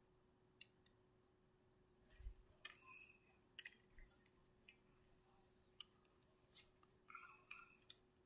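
Faint, irregular clicks of buttons being pressed on a Sony PSP handheld console, with a couple of faint short tones from the console.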